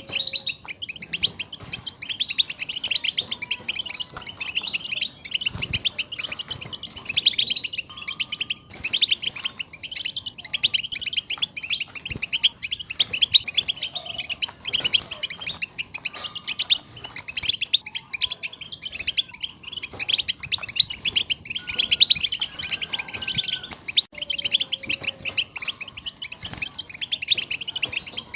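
European goldfinches singing: a dense, unbroken twittering of fast, high chirps and trills. Now and then a faint, lower whistled note comes through beneath it.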